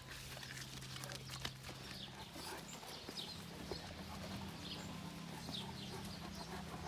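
Footsteps of someone walking, with faint short high chirps over a low steady hum.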